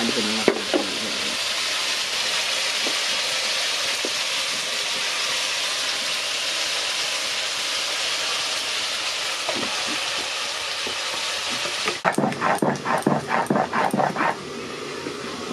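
Meat sizzling steadily as it fries in a hot wok, with a spoon stirring it now and then. About twelve seconds in, the sizzle cuts off and a quick, uneven run of short rasping strokes takes over.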